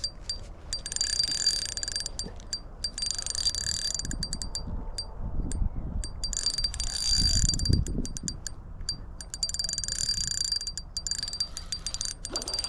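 Spinning fishing reel clicking and whirring in bursts, with short pauses, while a hooked bass is fought and reeled in. There are a few low thumps from handling around the middle.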